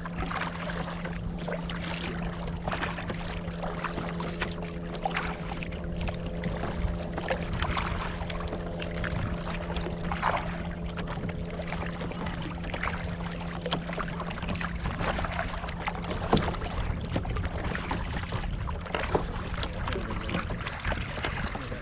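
Water splashing and lapping along a kayak's hull as it is paddled across choppy open water, with short splashes throughout. A steady low hum runs underneath and fades out near the end.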